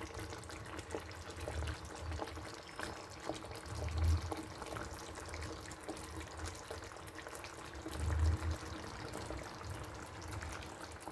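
Water trickling and running, with many small ticks and clicks through it and a couple of dull low thumps, about four and eight seconds in.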